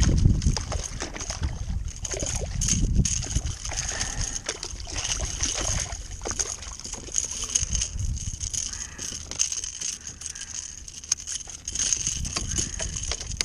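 Wind buffeting the microphone in gusts, with water lapping and sloshing against a kayak hull.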